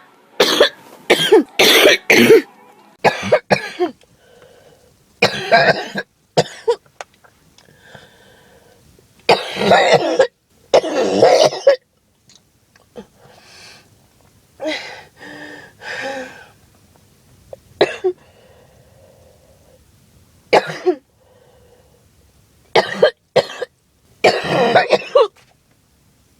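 A person with a cold coughing harshly, in fits of several coughs at a time, with pauses between the fits.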